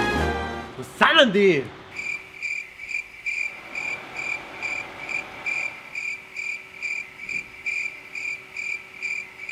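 A cricket chirping in even pulses, about two and a half chirps a second, over a faint steady low hum. Just before the chirping starts, about a second in, there is a brief sound that falls quickly in pitch.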